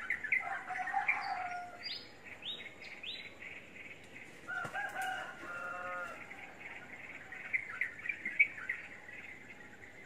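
A group of lovebirds chirping and chattering with quick high calls and squeaks, and two longer, lower drawn-out calls, one about a second in and one near the middle.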